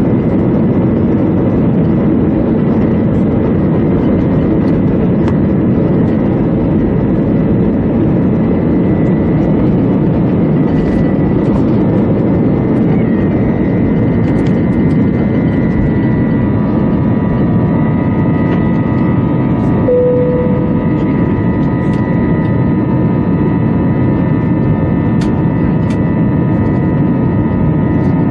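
Airbus A321's twin jet engines at takeoff thrust, heard from inside the cabin: a loud, steady roar as the airliner rolls, lifts off and climbs. A steady whine rises out of the roar partway through, and a short single beep sounds about two-thirds of the way in.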